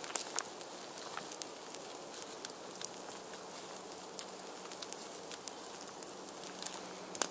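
Campfire crackling, with scattered small pops and ticks over a soft outdoor hiss.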